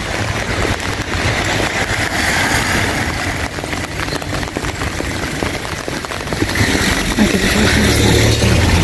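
Rain pattering on an umbrella held just overhead: a dense, steady hiss of drops. A low rumble builds near the end.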